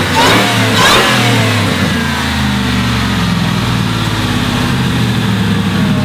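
Supercharged 5.4-litre V8 of a Gen 2 Ford F-150 SVT Lightning, its supercharger on an upgraded pulley, revved in the first second with a rising supercharger whine over the engine, then running on steadily as the revs ease down.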